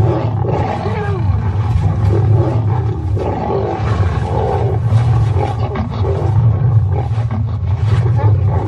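Several lions roaring and snarling together in a fight, a dense, continuous din that starts abruptly.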